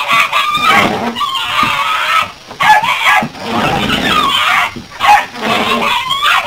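Small terrier growling and snarling in rapid, nearly continuous bursts while it lunges and bites at the moving windshield wipers.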